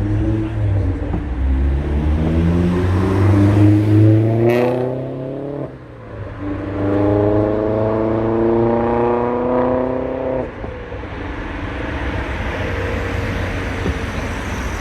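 Heavy diesel-electric locomotive engine working hard, its note rising as it accelerates. It drops away suddenly about six seconds in, returns as a steadier drone, then cuts off about ten seconds in, leaving a rumbling roar.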